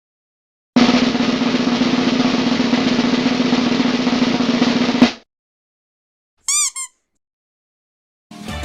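Snare drum roll lasting about four seconds, ending on a single sharp hit. A moment later comes a brief run of quick high chirps.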